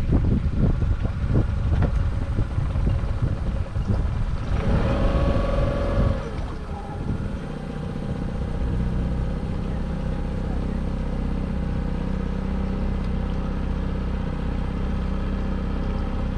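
Small outboard kicker motor on a sailboat running, with wind buffeting the microphone for the first few seconds. About five seconds in the engine note falls, and then it runs steadily.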